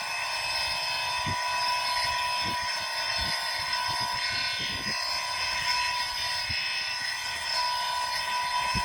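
Dense nighttime chorus of tropical insects, many high-pitched tones droning steadily at once, with a few soft low thumps scattered through it.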